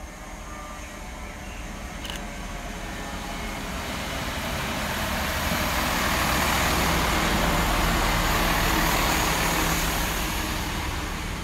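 Chiltern Railways Class 165 Networker Turbo diesel multiple unit running into the station past the platform: the rumble of its wheels and diesel engines grows louder, peaks in the middle as the carriages pass close by, then fades near the end.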